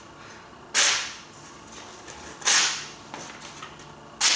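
Folding knife slicing through sheets of printer paper, three sharp swishes about a second and a half apart, each fading quickly. A paper test of a Cold Steel Recon 1's AUS8 edge, worn from 175 cardboard cuts, which cuts on its sharp front part but rips the paper where the heavy cutting was done.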